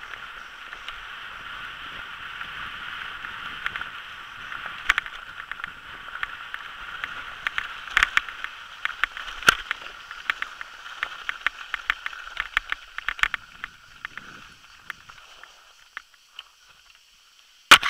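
Mountain bike running fast down a loose gravel trail: a steady hiss of tyres on gravel with frequent sharp knocks and rattles from the bike over bumps. The hiss fades out about fifteen seconds in as the bike slows to a stop, and a single sharp click comes near the end.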